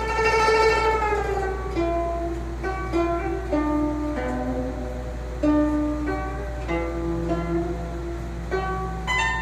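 Guzheng (Chinese plucked zither) playing a slow melody of single plucked notes that ring and fade. The first note bends downward in pitch. A steady low hum runs underneath.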